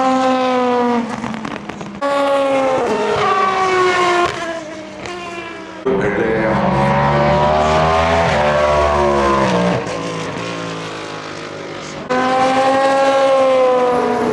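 Endurance race cars' engines at speed, several cars heard one after another in short cut-together shots, each a loud engine note that rises and falls in pitch as the car goes by.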